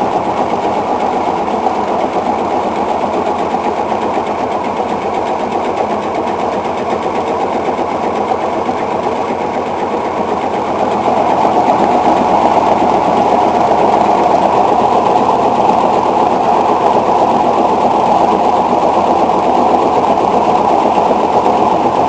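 Atlas 5.0 washing machine in its spin cycle, running with a fast, steady rattle as the drum spins and the machine shakes. It grows louder about halfway through.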